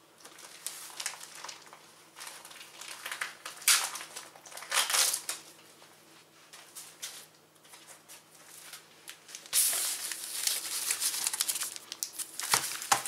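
Plastic packaging of a sticker starter pack and its foil sticker packets crinkling as they are handled: short rustles early, then louder, steadier crinkling for the last few seconds.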